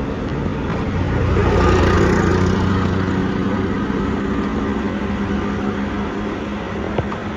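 A motor vehicle's engine running with a steady low hum, swelling louder about two seconds in as the vehicle passes or speeds up, with one sharp click near the end.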